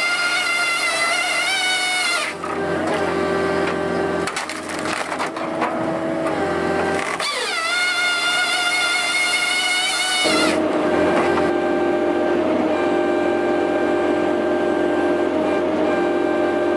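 Crane-mounted multi-blade firewood processor sawing logs into rounds: circular saw blades whine as they cut, twice, with wood splintering and crackling between the cuts. About ten seconds in the whine stops, and a steady hum of the machine carries on.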